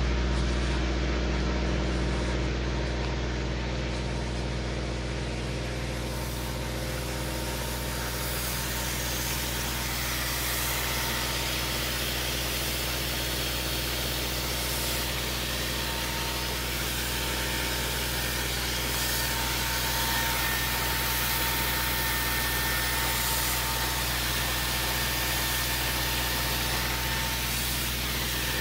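Steady drone of a tractor's diesel engine running at constant speed to drive an irrigation pump, overlaid from a few seconds in by the hiss of a sprinkler gun spraying water over maize.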